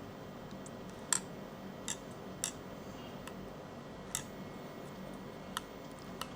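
A few small, sharp clicks at irregular intervals, the loudest about a second in, as an NVMe SSD card is handled and seated into the M.2 slot of a Jetson Orin Nano board.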